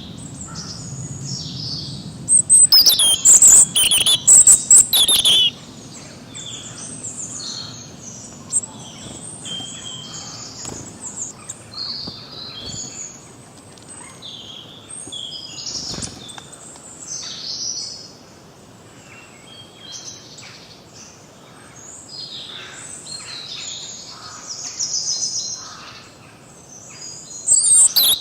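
Several forest birds singing and chirping. A loud close bird gives a fast run of repeated notes for about three seconds early on and again near the end, over fainter calls from other birds.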